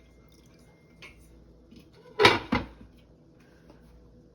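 Two sharp hard knocks about a third of a second apart, near the middle, over faint room noise.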